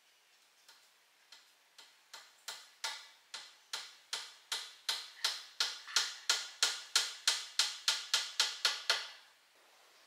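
A long run of sharp, regular clicks. They start faint, grow steadily louder and speed up from about two to about three a second, then stop abruptly a second before the end.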